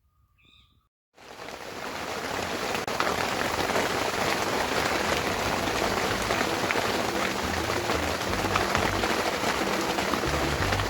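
Hard pouring rain, starting suddenly about a second in after near quiet and then falling steadily, heard from under a tarp sheltering a tent.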